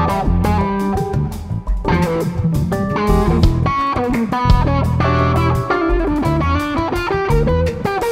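Instrumental jazz-rock band playing: an electric guitar plays a lead line of quick note runs over bass guitar, drum kit and keyboards.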